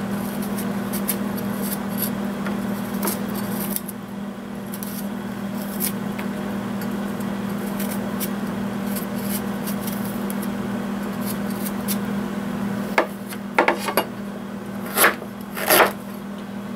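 Knife scraping and cutting a piece of fresh ginger root held in the hand, with light scratchy clicks, over a steady low hum. From about thirteen seconds in, five or six sharp knocks of the knife on a wooden cutting board.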